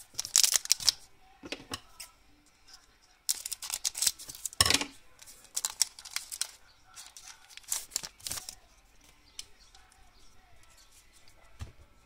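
Foil trading-card pack crinkling and tearing as it is handled and ripped open, in several short crackling bursts over the first eight seconds, then quieter handling of the cards.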